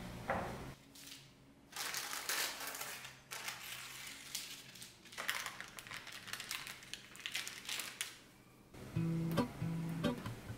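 Parchment baking paper crinkling and rustling in two stretches as it is handled and peeled away from a freshly baked loaf cake. Acoustic guitar music plays softly underneath and comes up louder near the end.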